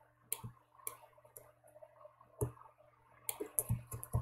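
Computer mouse and keyboard clicks: about ten sharp clicks at irregular intervals, coming closer together near the end.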